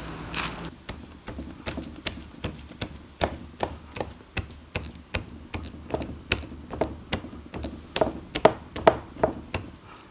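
A raw deer leg being pricked all over with a pointed tool: a string of sharp, irregular taps, about two or three a second, louder near the end. The first moment holds the rattle of a spice shaker over a steel bowl of salt.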